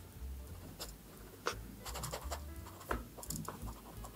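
Extra-fine fountain pen nib writing on paper: faint scratching of the nib, with a few sharper ticks as strokes start and end.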